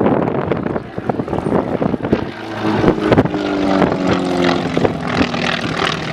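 Wind buffeting the microphone, then from about two seconds in a propeller airplane's piston engine comes in loud as the aerobatic plane flies past, its drone falling slightly in pitch.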